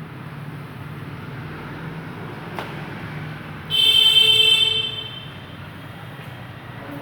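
A vehicle horn sounds once, a steady, high-pitched note lasting just over a second, over a steady low hum.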